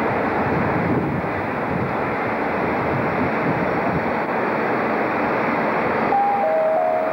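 Steady rushing noise of a station platform under an overbridge. About six seconds in come two held tones, a higher then a lower, overlapping.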